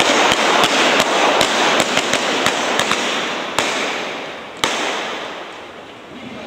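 Movie guns firing blanks in a rapid, uneven string of shots over a dense rush of noise. The shots space out, with a last sharp one about four and a half seconds in, and the noise then fades away.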